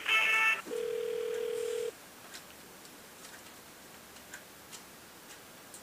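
Telephone line tones during a call transfer: a brief buzzy beep, then a steady ringback tone for about a second. Low line hiss with faint clicks follows, and the ring tone starts again near the end.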